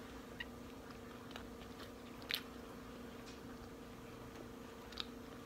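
A person chewing a mouthful of soft homemade banana bread: faint wet mouth clicks and smacks, a couple of them louder about two seconds in and near the end, over a steady faint hum.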